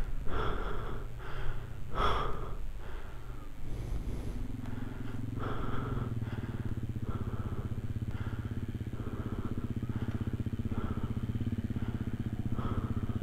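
Trail motorcycle engine running, settling into a steady low-revs note about four seconds in.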